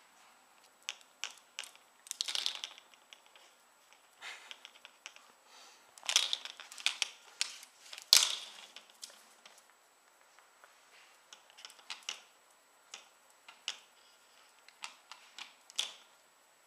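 A plastic hair claw clip clicking and clattering on a tile floor as a Yorkshire terrier plays with it: irregular sharp clicks in small bunches, the loudest clack about eight seconds in.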